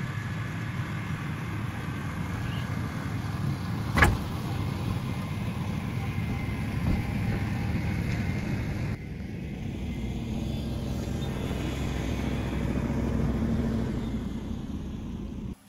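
Vehicle driving: a steady rumble of engine and road noise, with a single sharp knock about four seconds in.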